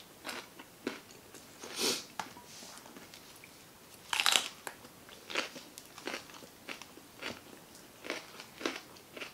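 Close-miked eating sounds: a few small mouth sounds, then a loud crunchy bite into a whole fresh jalapeño pepper about four seconds in. Chewing follows, with a crunch about every two-thirds of a second.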